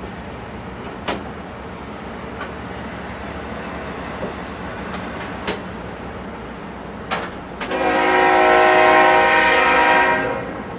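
Diesel locomotive horn on a CSX intermodal train sounding one long multi-note chord for about two and a half seconds near the end, over the steady rumble of the approaching train.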